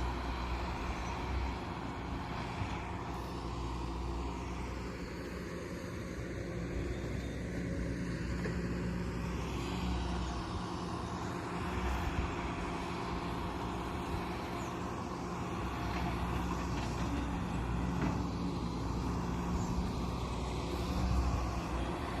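Hydraulic excavator's diesel engine running steadily, with a few faint knocks.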